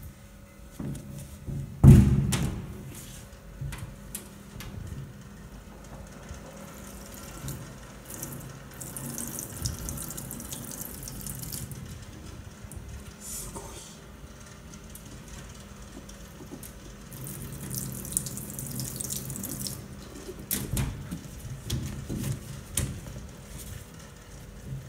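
Water running from a tap into a stainless steel sink in two spells, with knocks as a rubber boot is handled in the water. A loud thump about two seconds in.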